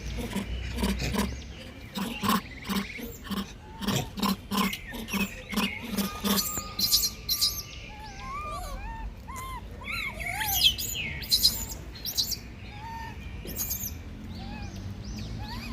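Monkeys calling in a quick run of harsh, pulsed cries, about three a second, that stops about six seconds in; after that, birds chirping in short rising-and-falling notes.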